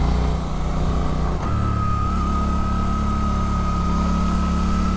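Suzuki GSX-8S's 776cc parallel-twin engine, with its 270-degree firing order, running on the move, its note changing about a second and a half in and then holding steady. A thin, high, steady whine sits above the engine from then on.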